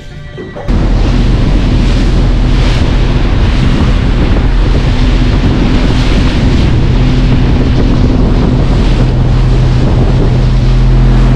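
Heavy wind buffeting the microphone over the steady running of a Mercury OptiMax outboard engine and the rush of water past a boat under way at speed. It cuts in suddenly under a second in.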